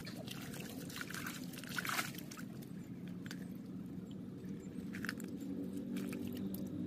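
Gloved hands scooping and sloshing through muddy water and wet soil around a tree's roots, with short scrapes and splashes, loudest about two seconds in and again near five seconds. A faint steady low hum sits underneath.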